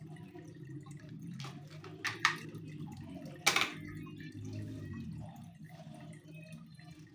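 Package being handled during an unboxing: three sharp clicks or taps, two close together about two seconds in and a louder one about a second later, over a low steady background hum.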